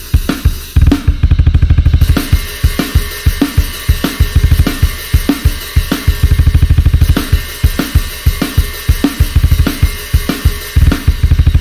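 Sampled drum kit from the Drum Daddy Kontakt library playing a groove. Snare hits and cymbals sound over several runs of very rapid bass-drum strokes, which come about a second in, around the middle and again near the end.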